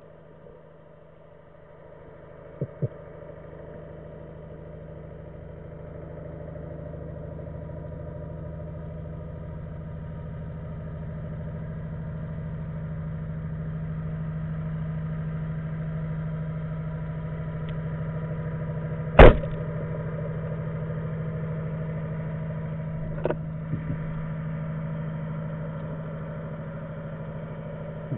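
A motorboat engine heard through the water, a steady hum that grows louder over the first dozen or so seconds and then holds. About two-thirds of the way in, a speargun fires with a single sharp crack, the loudest sound, followed a few seconds later by a couple of faint clicks.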